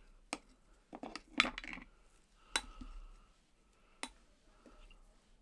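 Sharp little clinks and taps from fly-tying tools at a metal vise while hackle is wrapped onto the hook, with a quick flurry of them about a second and a half in and single clicks after.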